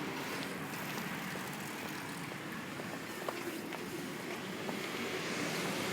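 Street traffic: a steady hum of cars on the road, with a few faint ticks.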